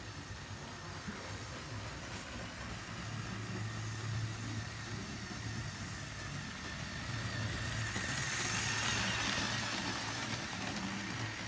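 LEGO 2-8-0 steam locomotive model running on plastic LEGO track: a steady electric-motor whir with the wheels rolling on the track. It grows louder about eight seconds in as the train passes close.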